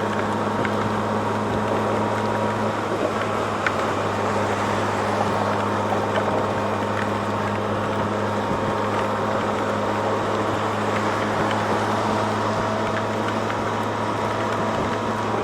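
2007 Yamaha FJR1300A's inline-four engine droning steadily at cruising speed, under a constant rush of wind and rain-soaked road noise, with a few faint ticks.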